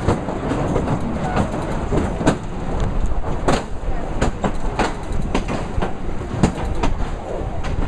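Carriage of a very steep incline railway running down its track, a steady rumble with frequent irregular sharp clacks and knocks from the wheels and the metal-framed, mesh-caged car.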